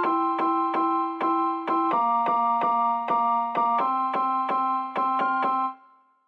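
Background music: a keyboard playing quickly repeated chords, about three to four strikes a second. The chord changes twice, and the music cuts off near the end.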